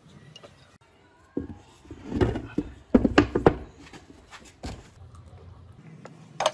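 Old cast-iron lathe parts knocking and clinking as they are handled and set down on a wooden workbench: a cluster of sharp knocks in the middle, and one more sharp hit near the end.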